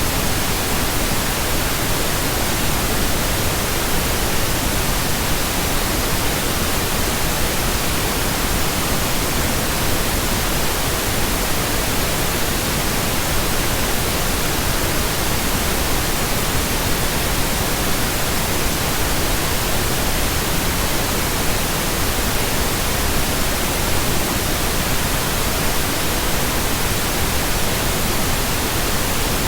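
Steady pink noise: an even hiss that does not change.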